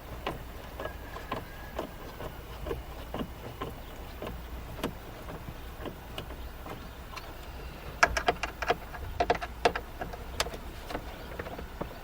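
Light clicks and taps of a Phillips screwdriver and plastic dash trim being worked loose, with a cluster of sharper clicks and rattles about eight seconds in, over a low steady hum.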